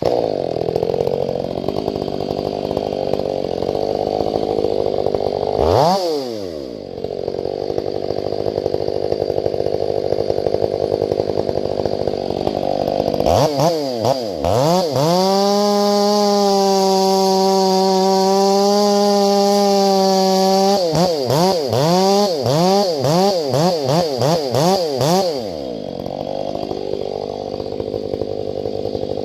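Stihl 500i, a fuel-injected two-stroke chainsaw, running at a lower speed, revved briefly about six seconds in, then held at a steady high rev for about six seconds, followed by a series of quick throttle blips before dropping back to a lower speed.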